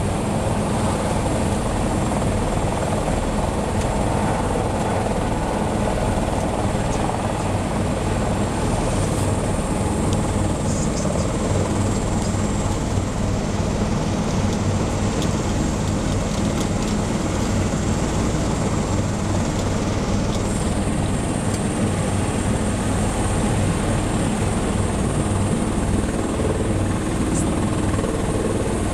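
Helicopter turbine engine and rotor running steadily on the ground, a constant loud drone with a high thin whine over it.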